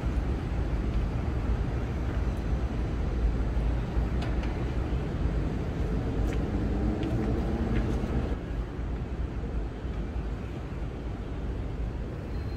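Outdoor city ambience: a steady low rumble of distant traffic. A louder hum joins about six seconds in and cuts off just after eight seconds.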